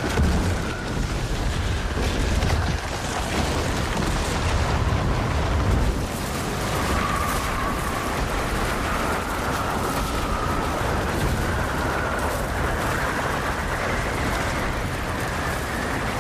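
Film sound of an avalanche: a continuous rushing rumble of snow and debris, heaviest in the low end for about the first six seconds, then settling into a steadier, slightly quieter rushing noise.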